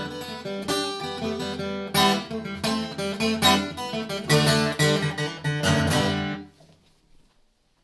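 Acoustic guitar playing chords in an instrumental passage, the strokes coming several to a second. About six seconds in the playing stops and the last chord dies away quickly.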